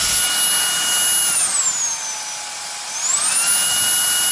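Reikiya HV-C11 handheld vacuum-blower's high-speed motor running with a loud high whine. After about a second and a half the motor spins down to a lower speed, then spins back up to its top speed near the end, as its power level is stepped down and up with the button.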